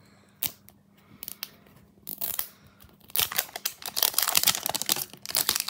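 A few light handling clicks, then from about three seconds in, dense crinkling and tearing of the plastic wrap on a Mini Brands Foodie capsule ball as it is pulled open.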